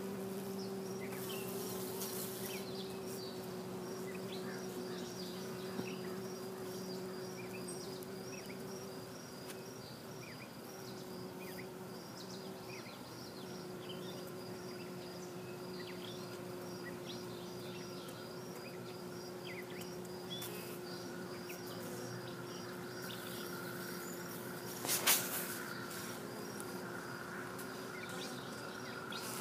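Honey bees buzzing over open hive frames: a steady colony hum. A faint, evenly pulsing high trill runs behind it, and a short louder burst of noise comes near the end.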